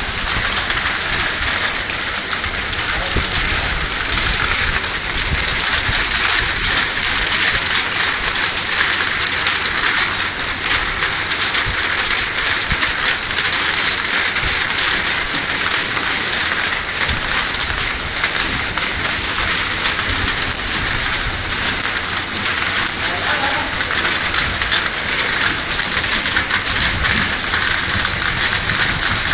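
External washing machine for 50 ml vials running: a loud, steady hiss with a dense, fast, fine clicking over it.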